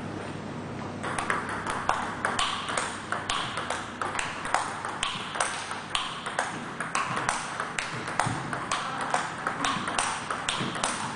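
Table tennis rally: the ball clicking off the bats and bouncing on the table in a quick, steady rhythm, a few hits a second, picking up about a second in.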